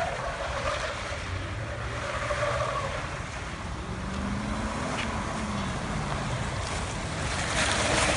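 Armoured Toyota Land Cruiser driving in turns, its engine note rising and falling about halfway through, with wind rumbling on the microphone. It grows louder near the end as it passes close by.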